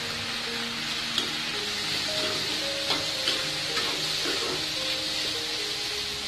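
Chopped tomatoes and onions sizzling in hot oil in a non-stick kadai while a spatula stirs them, with a steady frying hiss. The spatula scrapes and taps the pan several times.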